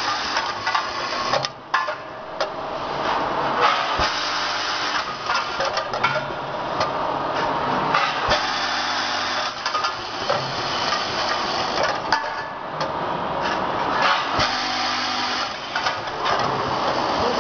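A bank of vibratory bowl feeders running together on a packaging machine: a steady buzz with parts rattling in the bowls, broken by frequent sharp clicks and knocks from the machine's mechanisms.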